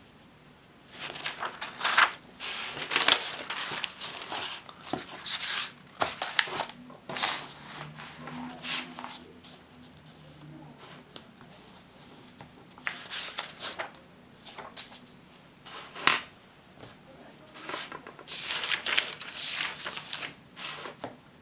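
Paper rustling in several bursts as the pages of a spiral-bound notebook are turned and the notebook is flipped over and laid flat, with one sharp tap about 16 seconds in.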